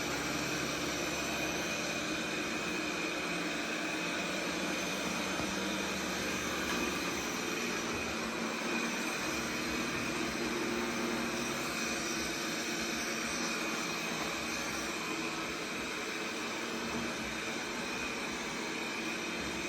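Robot vacuum cleaner running: a steady whir from its suction fan, with a faint high tone held throughout.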